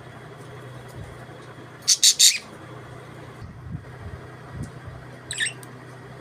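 Budgerigars chirping: three sharp chirps in quick succession about two seconds in, then a fainter chirp past the middle, over a steady low hum.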